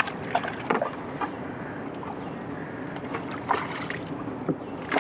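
Irregular wooden knocks and clatter on a small boat, about eight in all, over a steady wash of water.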